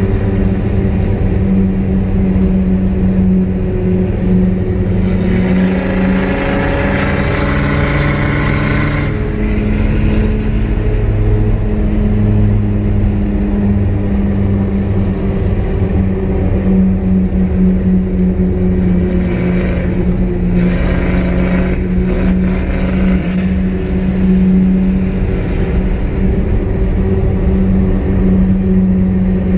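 Remapped Land Rover Discovery TD5 five-cylinder turbodiesel pulling under acceleration, heard from inside the cabin over a steady drone. The pitch climbs for a few seconds about five seconds in and breaks off sharply as the throttle is lifted for a gear change, then climbs again briefly about twenty seconds in.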